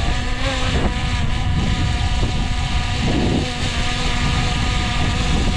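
DJI Air 2S drone hovering just overhead, its propellers giving a steady whine of several tones over a low rumble.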